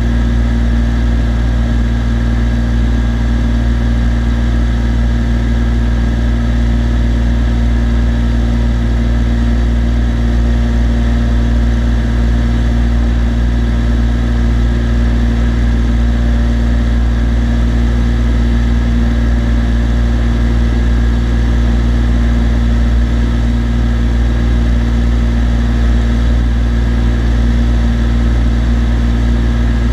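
Cessna TU206D's turbocharged six-cylinder piston engine and propeller running steadily in cruise flight, a constant loud drone with an unchanging low hum.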